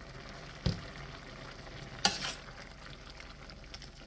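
Squid stir-fry sizzling in a pan while being stirred. A utensil knocks against the pan about a second in, and there is a sharp clatter about two seconds in.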